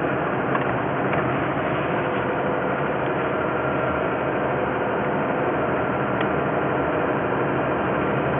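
Toyota 2GR-FE 3.5-litre V6 running steadily, as heard in the cabin, with a faint knock heard now and then. The owner first noticed the knock after an oil change to 5W-20 instead of 5W-30, but has no proof that the oil is the cause.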